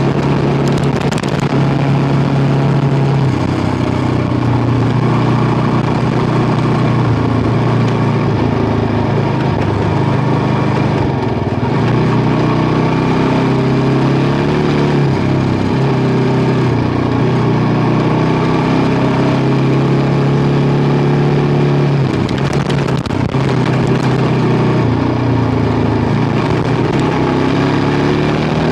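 Kawasaki KLR650's single-cylinder four-stroke engine running steadily under way, its pitch dipping and rising a few times. Two short sharp clicks, one about a second in and one late on.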